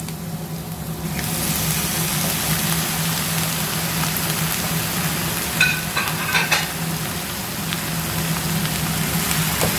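Raw cubed chicken breast sizzling in hot oil with sautéed onions; the sizzle jumps up about a second in as the chicken goes into the pan, then holds steady. A wooden spatula scrapes and stirs the pan a few times around the middle.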